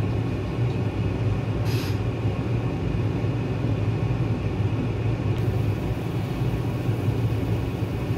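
A pot of pork belly broth on an electric stovetop coming to a rolling boil: a steady low rumble with hiss that turns a little brighter about five seconds in. There is a brief click about two seconds in.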